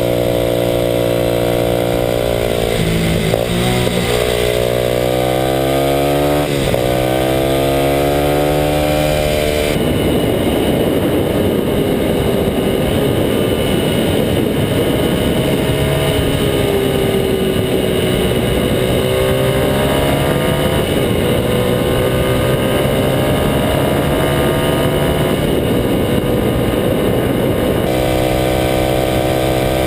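Kawasaki KLX250SF single-cylinder four-stroke engine running through a Muzzy aftermarket exhaust while riding, its note rising and falling with the throttle and gear changes. From about ten seconds in until near the end, a loud rushing noise partly covers the engine, which comes through clearly again in the last couple of seconds.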